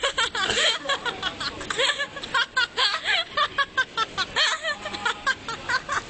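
People laughing in quick, repeated bursts, mixed with bits of talk.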